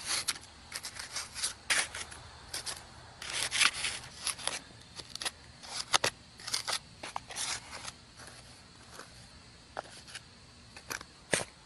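Small hand trowel scraping and digging through dry clay soil in quick, irregular strokes, with a quieter spell of only a few strokes about eight seconds in.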